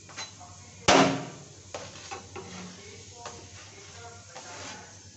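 Steel spatula working a paneer paratha on a hot iron tawa: one loud metal clank about a second in, then light scrapes and clicks over faint sizzling.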